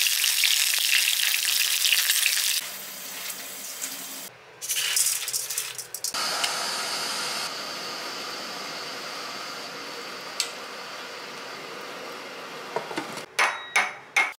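Pork belly chunks sizzling in hot fat in a frying pan: loud and dense while searing at first, then softer after about two and a half seconds, with some handling noise in between. A few sharp clicks come near the end.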